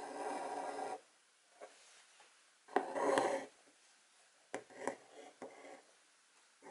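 Embroidery thread being drawn through cloth stretched taut in a wooden embroidery hoop: a long rasping pull at the start and another about three seconds in, then a few short sharp ticks and brief tugs as the needle pierces the fabric and the thread is snugged.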